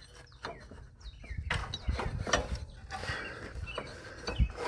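Irregular metallic clicks, knocks and scrapes of hand tools working the belt pulley hardware under a riding lawn mower, as the pulley assembly is loosened for removal.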